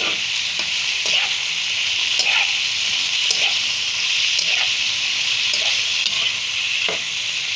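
Raw boneless chicken pieces sizzling steadily in a little oil in a pan. A metal slotted spatula stirs and scrapes them about once a second.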